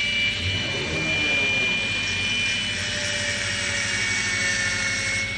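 Handheld angle grinder cutting through a motorcycle's metal handlebar clamp: a steady high whine from the spinning disc over the hiss of grinding metal.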